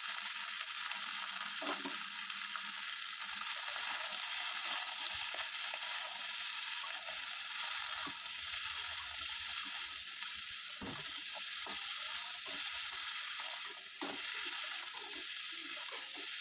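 Mixed vegetables sizzling steadily as they fry in oil in a metal kadai on a gas stove, while a metal spatula stirs them, with a few short scrapes against the pan. The vegetables are being sautéed with salt and turmeric for shukto.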